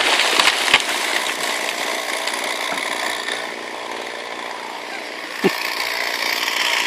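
A felled tree's crown crashing down, branches cracking and snapping for the first second or so. Then a two-stroke chainsaw idling steadily, louder over the last second and a half.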